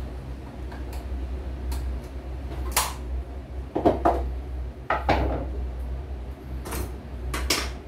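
Sharp plastic clacks and knocks as parts of a CNY portable computerized embroidery machine are handled and fitted by hand, about half a dozen from about three seconds in, over a steady low hum.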